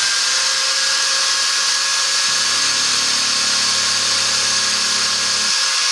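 Small electric drill with a fine half-millimetre bit running at a steady high speed, drilling a pin hole into a plastic eyeglass temple arm for the hinge screw. A low hum joins from about two seconds in until near the end.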